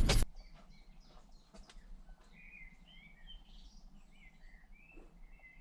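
Small birds chirping faintly in a series of short, high calls, starting about two seconds in. A loud rumbling noise cuts off suddenly at the very start.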